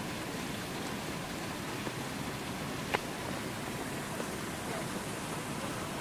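Steady rush of water from a frozen waterfall, still flowing beneath its ice, heard as an even hiss. A single sharp click about three seconds in.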